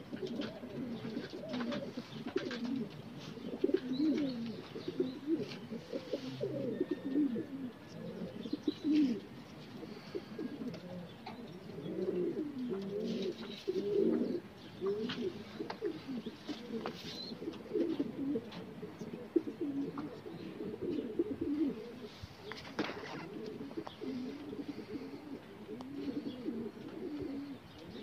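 A flock of domestic pigeons cooing, many low, wavering coos overlapping without a break.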